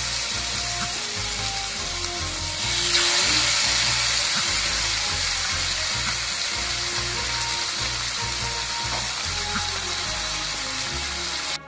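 Marinated beef steaks sizzling in hot oil in a frying pan, the sizzle swelling louder about three seconds in as a second steak goes into the oil. Background music plays underneath.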